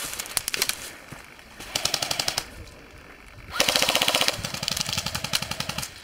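Airsoft rifles firing rapid full-auto bursts. There are three bursts: a short one at the start, another about two seconds in, and the longest and loudest starting a little past halfway.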